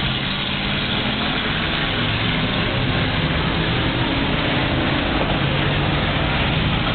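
Several race cars' engines running steadily at speed over a dense, even rushing noise.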